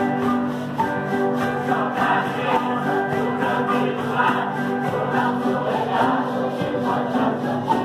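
A mixed choir of men and women singing together, accompanied by viola caipira and guitars.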